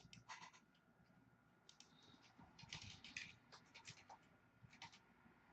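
Faint, irregular clicks and scratchy rustles of hands working at a desk, a few of them in quick runs.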